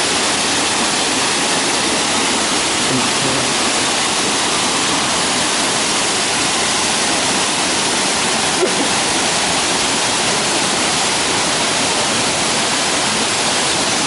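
Cascading forest waterfall in full flow, its water pouring over rock steps with a steady, loud rush.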